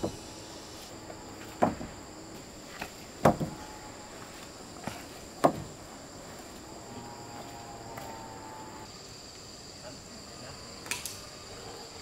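Wooden poles knocking against each other and the log frame as they are laid across a log coop: four sharp knocks in the first six seconds and a fainter one near the end. A steady high insect buzz runs underneath.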